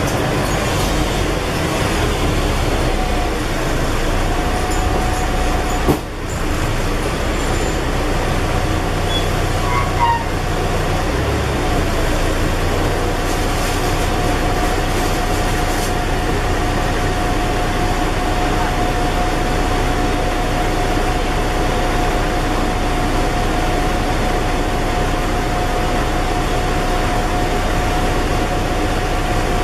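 Scania N113 double-decker bus heard from inside while under way: steady diesel engine and road rumble, with a steady whine coming in about a third of the way through and a single knock about six seconds in.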